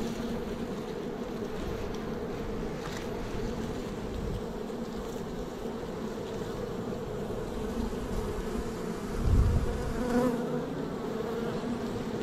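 A honeybee swarm buzzing at close range, a steady hum. A brief low thump about three-quarters of the way through.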